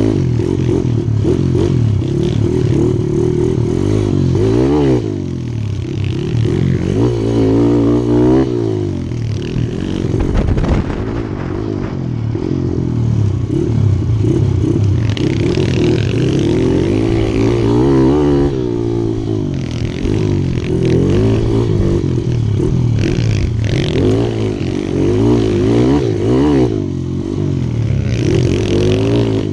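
Mini dirt bike engine ridden off-road, revving up and falling back again and again as the throttle is opened and closed.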